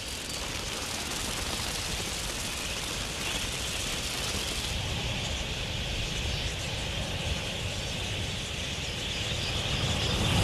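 Dense, steady din of a large flock of birds at a waterhole, with many calls and wingbeats blurred into one hiss. It grows a little louder near the end.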